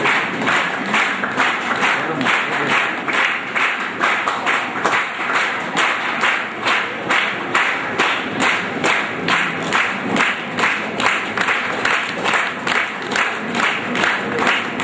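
Audience clapping in an even rhythm, about three claps a second, with no break.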